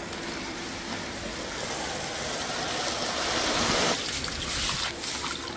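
Aquarium gravel pouring from a sack into a bucket of water: a steady rushing that slowly grows and stops abruptly about four seconds in. After that the gravel is stirred and rinsed by hand in the water.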